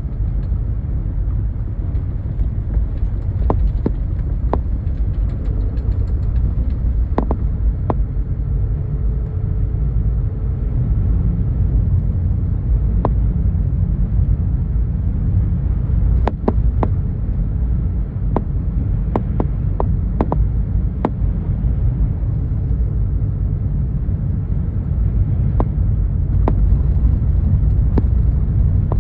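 Steady low rumble with scattered faint clicks and ticks.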